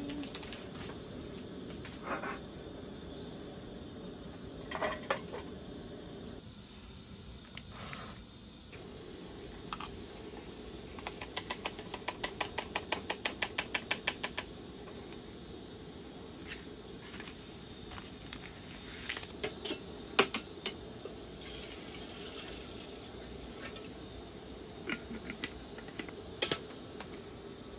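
Light clicks and taps of things being handled over a low steady hiss. Near the middle comes a quick, even run of about twenty clicks lasting some three seconds.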